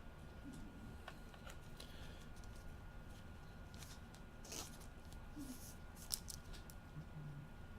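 Faint rustling and light clicks of trading cards and their plastic holders being handled, with one sharper click about six seconds in.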